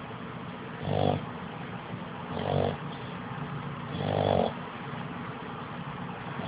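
Sleeping dog snoring, three snores about a second and a half apart.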